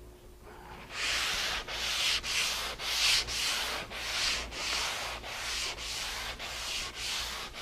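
Sandpaper rubbed back and forth by hand over a poplar board coated with sanding sealer, a hissing rub at about three strokes a second that starts about a second in. The dried sealer sands easily and powders up nice.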